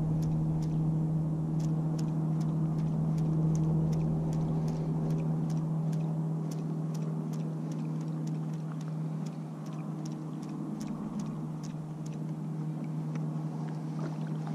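A motor drones steadily at one constant low pitch, with a run of light, quick ticks at about four a second that thin out after the first several seconds.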